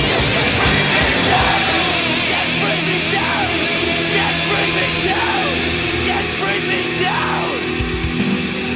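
Loud heavy rock music with yelled vocals.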